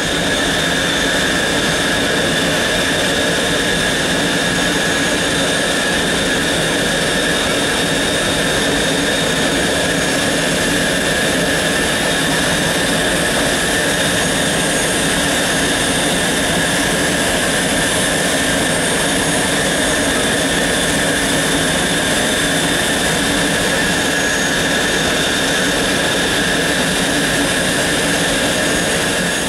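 Boeing 737-300's CFM56-3 turbofan jet engines running at a steady pitch, a loud even rush with a steady high whine on top.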